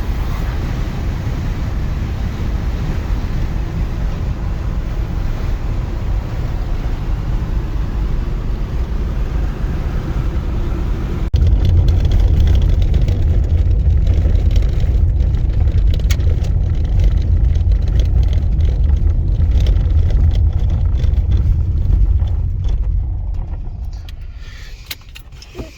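Steady low rumble of a car driving, heavy in the bass, which jumps louder about eleven seconds in and fades away over the last few seconds.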